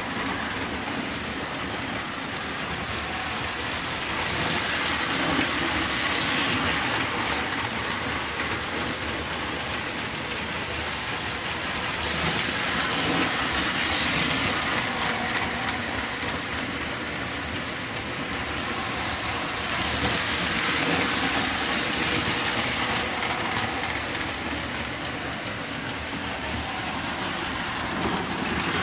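Lionel tinplate toy trains running on three-rail O-gauge tinplate track: a steady rolling rumble with the whir of the motors, swelling and easing about every seven seconds.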